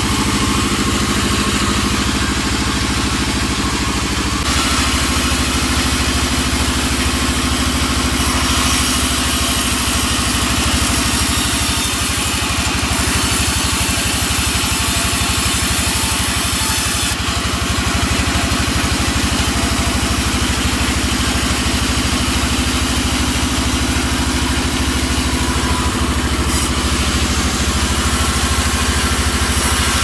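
Band sawmill running steadily, a low even drone from its drive under the hiss of the blade cutting through albasia wood logs; the cutting hiss shifts in strength as the logs are fed through, brightest in the middle stretch.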